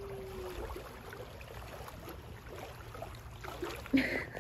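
Lake water lapping gently at the shore over a low, steady rumble of wind, with a brief louder sound near the end.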